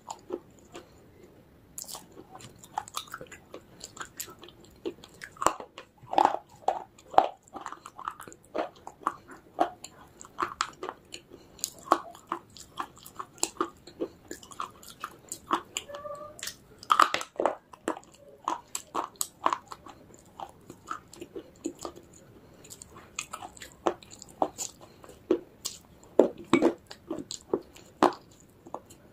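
Close-miked crunching and chewing of baked clay pieces in a person's mouth: many irregular sharp crunches and crackles.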